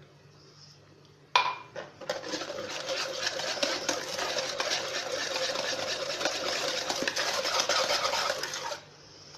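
Wire whisk beating eggs, sugar and oil by hand in a plastic mixing bowl: a fast, steady rattle of the wires against the bowl. It begins after a single sharp click about a second in and stops just before the end.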